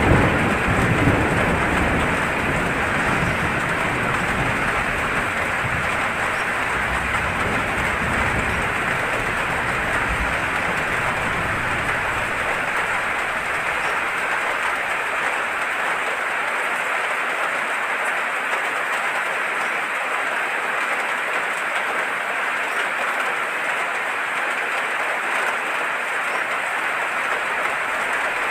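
Heavy rain falling steadily. A low rumble of thunder runs through the first dozen seconds and dies away, and thunder begins rumbling again right at the end.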